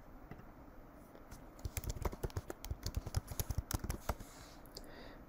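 Computer keyboard typing: a quick run of keystrokes lasting about two and a half seconds, entering an administrator password.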